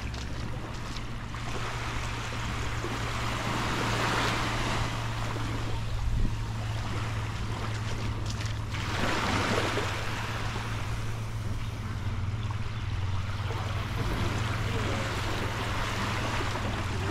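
Small waves washing up on a sandy beach, swelling and falling back twice, over a steady low hum.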